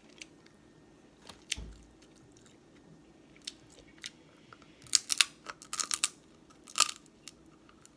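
Close-miked eating of seafood boil: chewing and crunching, with a cluster of sharp crackles and smacks in the second half.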